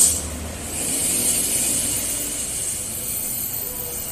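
Passing bus's air brakes releasing air: a sharp hiss at the start, then a longer hiss lasting about three seconds over a low engine rumble.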